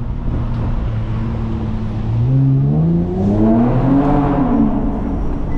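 JB4-tuned Infiniti Q60's twin-turbo VR30 V6 accelerating: the engine note climbs steadily from about two seconds in, peaks a little after four seconds, then drops as the throttle comes off.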